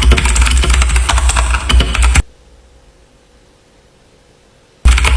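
Cheap mechanical keyboard with clicky blue switches being typed on fast, a dense run of key clicks that stops after about two seconds and starts again near the end after a pause.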